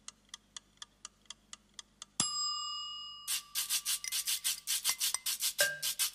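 Mechanical wind-up kitchen timer ticking about five times a second, then its bell dings once a little over two seconds in and rings out for about a second. About a second later, fast rhythmic shaker-like percussion of the theme music starts.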